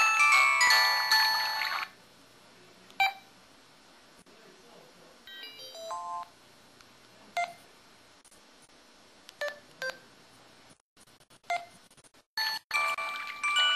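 LG KP6300 mobile phone's built-in effect tones played through its speaker. A bright chime melody steps downward and stops about two seconds in. Short, separate beeps and blips follow, and another bright jingle starts near the end.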